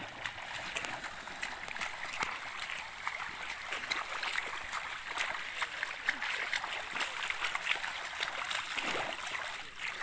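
Shallow muddy water splashing and trickling as a bamboo-framed push net is shoved through it: a steady run of small splashes and sloshing.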